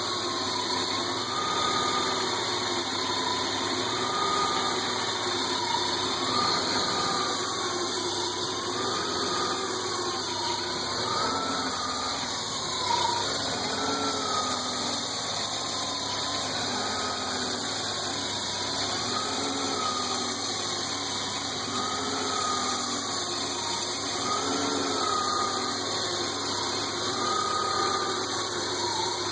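A 1992 BMW 325i's straight-six idling steadily, with a whine whose pitch rises and falls about every two and a half seconds.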